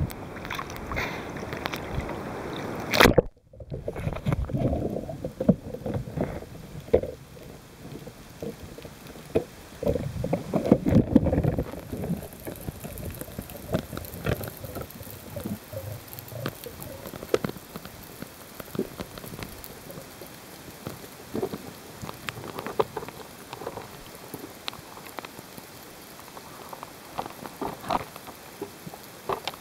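Seawater and wind rushing against a camera at the surface, then a splash as it plunges under about three seconds in, cutting the wind off. After that, muffled underwater sloshing and bubbling, settling into a quieter hiss with scattered clicks and crackles.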